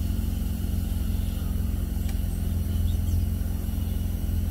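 Steady low rumble with a constant hum, and nothing sudden standing out.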